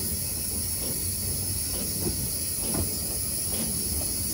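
Water pump of a Cockerill vertical-boilered shunting locomotive running as the engine moves, its clack valve clunking at irregular intervals over a steady hiss of steam and a low rumble.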